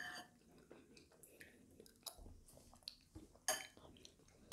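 Faint eating sounds: a metal spoon scraping and tapping in a bowl of porridge, small scattered clicks, and a bright ringing clink near the end.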